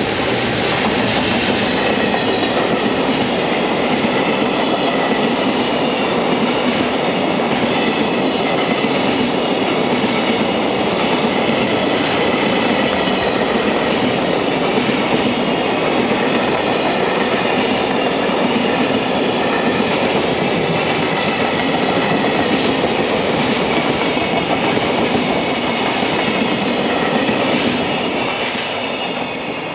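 Container freight wagons of a JR Freight train rolling past at speed, a steady clatter of wheels on the rails with regular clicks over the rail joints. It fades near the end as the last wagon goes by.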